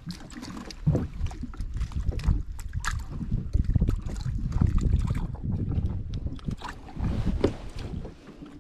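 Water slapping and lapping against a plastic sit-on-top fishing kayak, with wind rumbling on the action camera's microphone and irregular small knocks and rustles as the angler handles the line and fish.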